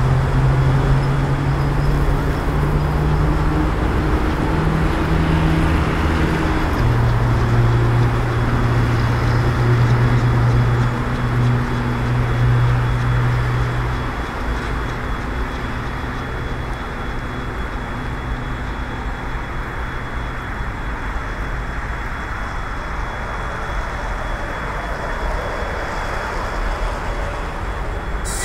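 Suburban electric multiple-unit train approaching slowly, heard as a steady low electrical hum over a constant rushing noise. The hum drops slightly in pitch about seven seconds in and fades out about halfway through.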